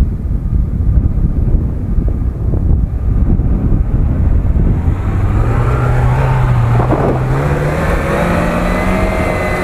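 A car engine revving under load, its pitch climbing steadily from about halfway through, over heavy wind rumble on the microphone.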